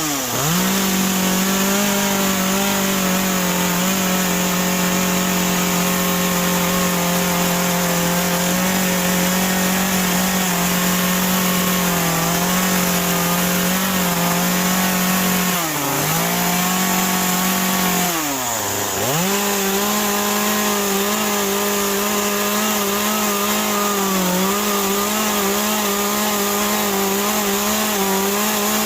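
Chainsaw running at high revs while its bar cuts scoops into a wet western red cedar stump. The engine pitch holds steady except for three short drops that recover, the deepest about two-thirds of the way through.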